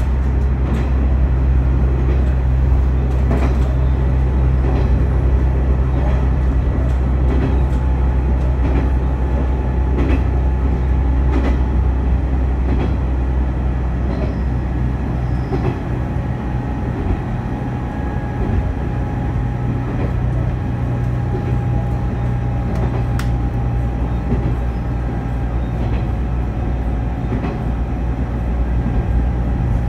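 Diesel railcar running along the line, heard from inside: a steady low engine drone with occasional clicks of the wheels over rail joints. A faint thin whine sets in about eight seconds in.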